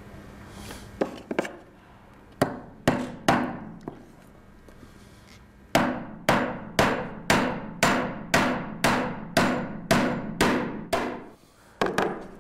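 Hammer driving a nail into a wooden board: a few light taps to set the nail, then a steady run of about a dozen blows, roughly two a second.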